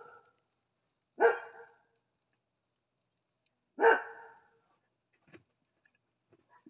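A dog barking twice, two single barks about two and a half seconds apart, each trailing off quickly, with a few faint clicks near the end.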